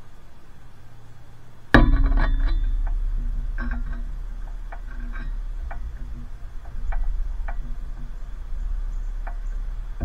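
Knocks and clicks from a backyard bird feeder station as birds land and move about it. A sudden loud knock with a short ringing about two seconds in is followed by a low rumble and scattered light taps and clicks.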